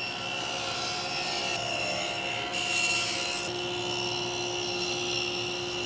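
Table saw running, its single blade cutting a rabbet into a solid walnut board: a steady motor whine with the hiss of the cut, a little louder about halfway through.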